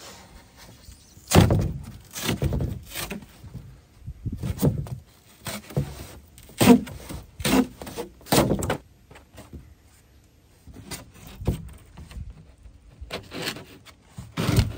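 Sheet of rigid foam insulation board (Foamular 150 XPS) being pressed, shifted and worked into a plywood box for a tight fit: a string of short scrapes, squeaks and knocks of foam against wood, with a brief lull near the middle.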